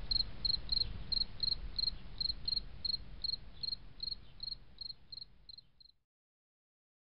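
Crickets chirping: a regular train of short, high chirps about three to four a second over a low background rumble. It fades and stops about six seconds in.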